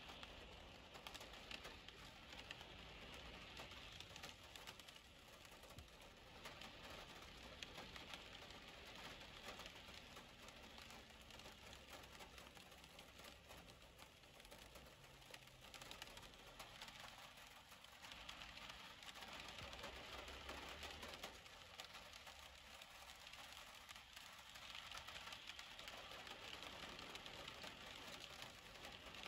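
Faint, steady rain pattering on window glass, with a soft hiss of vehicles passing on the wet road.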